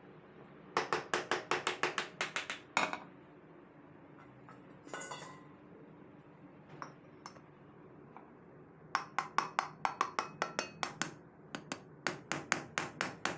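Small metal hammer tapping the end shield of a 3 HP electric motor down onto its frame and bearing. The taps come in three quick runs of about six strokes a second, with a sharp metallic ring.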